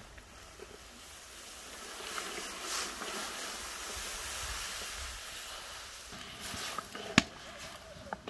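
Water poured in a thick stream into a large aluminium cauldron, a steady splashing pour that builds over a few seconds and eases off. Then a single sharp knock as a wooden spatula goes into the pot to stir.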